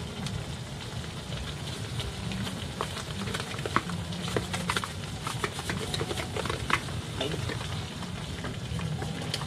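A utensil stirring in a pan of simmering sweet-and-sour sauce with vegetables, with frequent light clinks and scrapes against the pan over a steady sizzle.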